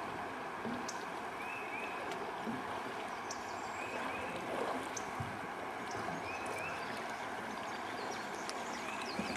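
Steady rush of running river water heard from a canoe. A short, high double chirp repeats about every two seconds over it.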